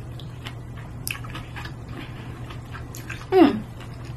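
A woman chewing a mouthful of grilled chive-stuffed squid, with small wet mouth clicks over a steady low hum. About three seconds in comes one short vocal sound of delight that falls steeply in pitch.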